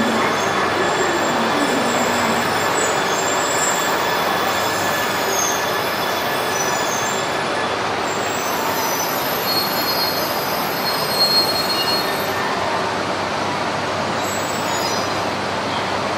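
E3 series Shinkansen train rolling slowly along the platform as it brakes to a stop, a steady running noise with thin high wheel and brake squeals about ten seconds in.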